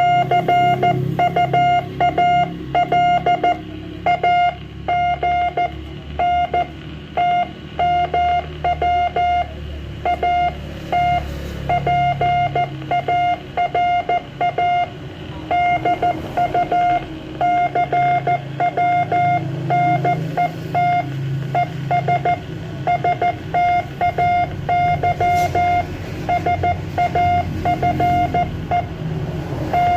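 Morse code (CW) on an amateur radio net call: a single loud beeping tone keyed on and off in dots and dashes, with short gaps between letters and longer pauses between words.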